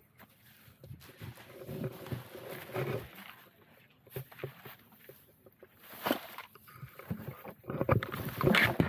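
Irregular rustling, crackling and clicks of litter being picked up and handled, likely going into a plastic rubbish bag, with louder bursts about six seconds in and near the end.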